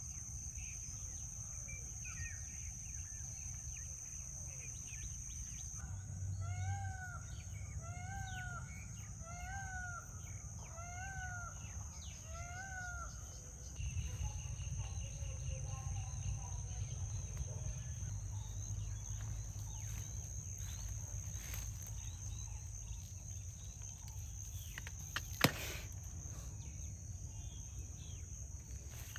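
Rural outdoor ambience: insects keep up a steady high-pitched drone. A few seconds in, a bird gives five rise-and-fall calls in a row, about one every second and a half. Near the end there is a single sharp click.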